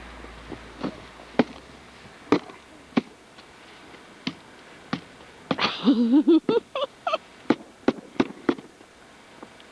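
Irregular sharp knocks and cracks of snow shovels chopping at packed snow and ice around a car, thickest in the second half, with a short wavering squeal about six seconds in.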